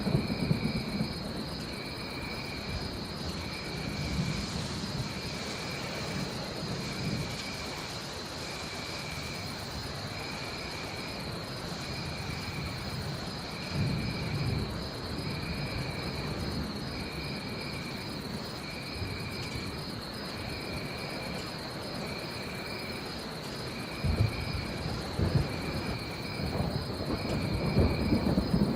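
Rainforest storm ambience: rain hiss under a steady high drone of jungle animals and another call repeating about once a second, with low thunder rumbling several times, most strongly around a third of the way in, about halfway and near the end.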